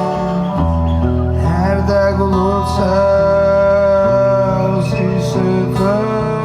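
Live band playing Georgian music: a long-held, slightly bending melody line over a sustained low bass, with plucked strings. A deeper bass note comes in about half a second in.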